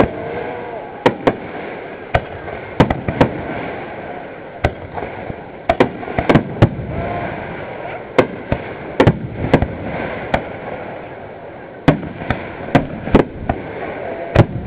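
Aerial fireworks bursting: an irregular string of sharp bangs, about two dozen in all and sometimes two or three within a second, over a continuous haze of noise.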